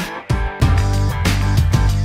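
Background music with a steady beat; a deep, sustained bass line comes in about half a second in.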